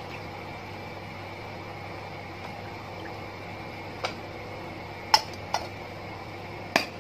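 Mixed clear coat poured from a plastic measuring cup through a paper paint strainer into the aluminium cup of a gravity-feed spray gun, trickling. Then a few sharp clicks and knocks from about four seconds in as the strainer, plastic cup and metal cup lid are handled and set down, over a steady background hum.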